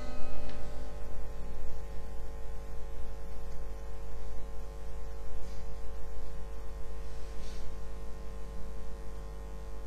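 The song's final chord, held steady without fading, over a constant low electrical mains hum.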